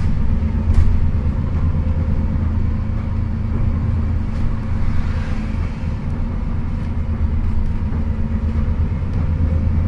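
Alexander Dennis Enviro400 MMC double-decker bus heard from inside while under way: its engine and Voith automatic gearbox run with a steady low drone, a faint steady whine and road rumble.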